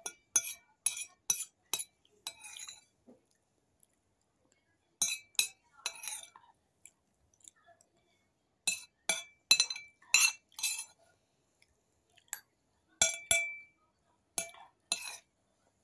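Metal spoon clinking against a stainless steel plate in about four bursts of quick strikes, some leaving a brief metallic ring.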